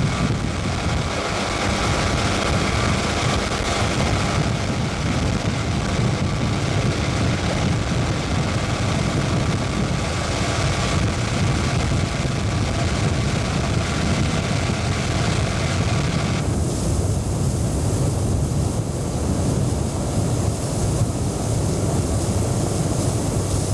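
Boat's outboard motor running steadily while under way, with wind rushing over the microphone. The higher hissing part thins out about two-thirds of the way through.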